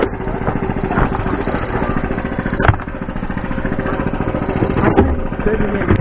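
Pickup truck engine idling steadily, with a sharp knock about two and a half seconds in and another near five seconds.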